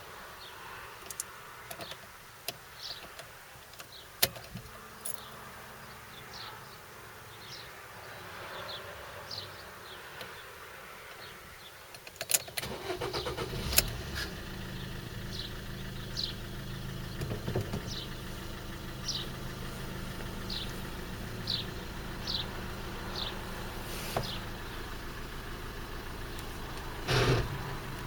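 Fiat Fiorino's 1.3 Multijet four-cylinder diesel engine is cranked and catches about twelve seconds in, then idles steadily. A short louder burst of noise comes near the end.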